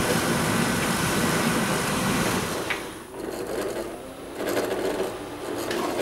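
AEG heat pump tumble dryer running in test mode, with the drum motor turning and the compressor on. About three seconds in it is switched off and the noise drops sharply, leaving a quieter gurgling of refrigerant gas equalising back under pressure in the heat pump circuit.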